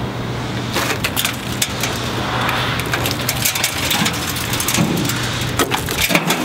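Shattered pickup rear-window glass, held together by tint film, crackling and crunching as the sheet is peeled and pulled out of the frame: many sharp irregular snaps starting about a second in. A steady low hum runs underneath.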